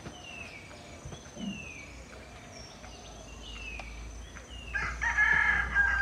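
A rooster crows, one long held call starting near the end, the loudest sound here. Behind it a bird repeats a short falling whistle about once a second over a steady high insect whine.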